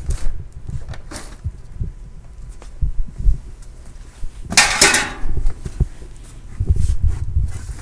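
Belongings being handled and shifted among cardboard boxes and plastic bags: scattered low knocks and bumps, with one loud rustle about halfway through that lasts about half a second.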